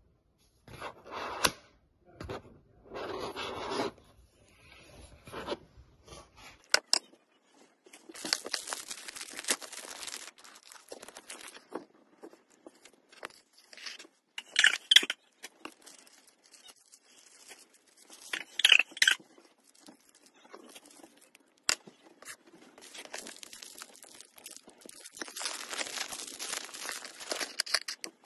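DJI Action 2 camera parts and accessories handled on a hard table: scattered sharp clicks and taps, with longer stretches of rustling and scraping, the longest near the end.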